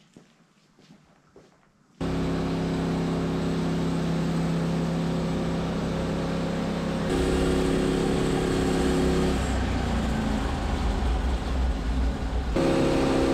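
Engine of a Norwood LumberPro HD36 portable bandsaw mill comes on abruptly about two seconds in and runs steadily. Its note changes around the middle and rises near the end as the mill is brought up to cutting.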